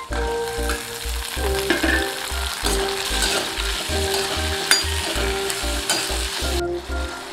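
Tomato pieces dropped into hot oil with shallots in a kadai, sizzling and frying while a metal spoon stirs and scrapes the pan, with a sharp clink about two-thirds of the way in. Background music with a steady beat plays underneath.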